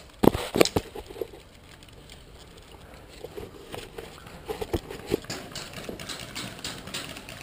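Footsteps and gear knocking as an airsoft player moves about, with a few sharp knocks in the first second and scattered lighter ones later.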